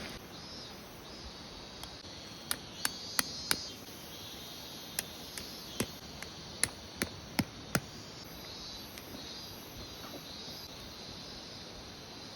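Insects chirping steadily in the background, broken by a run of sharp, short knocks: four about two and a half seconds in, then seven more between five and eight seconds, about three a second.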